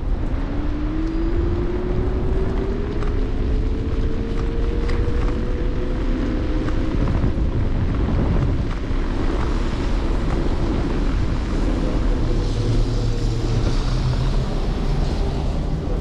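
Apollo Explore electric scooter's motor whining while riding, its pitch rising steadily over the first several seconds as it speeds up, then holding, over a low wind rumble on the microphone. A hiss joins for a few seconds near the end.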